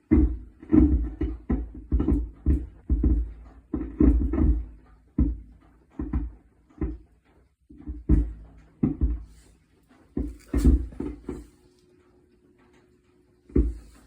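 Suspect noise from a Mercedes-Benz A-Class (W177): a series of irregular low knocks or clunks, about two or three a second, pausing briefly near the end.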